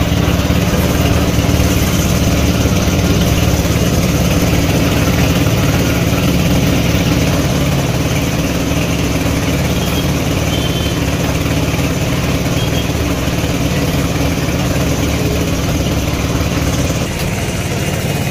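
Compressed-air paint spray gun hissing as paint is sprayed, over a steady low machine hum; the sound eases slightly about seventeen seconds in.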